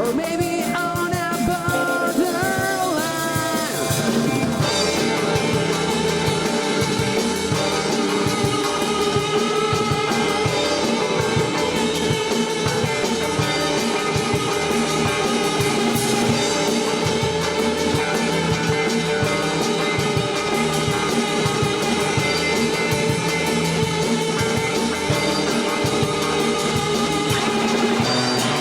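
Rock band playing a song live, with drum kit and guitar keeping a steady beat. A bending melodic line stands out in the first few seconds before the full band fills in.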